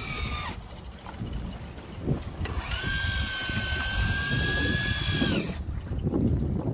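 Electric fishing reel winding in line. Its motor whines at a steady pitch, stops with a short drop in pitch about half a second in, then runs again for about three seconds from a little after two seconds in. A low, steady rumble of wind and sea runs underneath.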